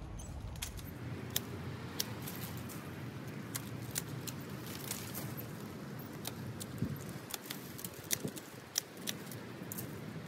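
Irregular sharp clicks and light rustling from hand work in a garden border, with the clicks coming thicker and louder in the second half.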